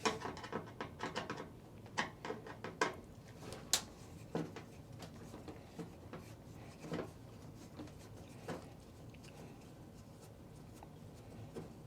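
Faint, scattered clicks, taps and scrapes of a screwdriver and hands removing the side-panel screws of a Kenwood stereo unit, busiest in the first few seconds.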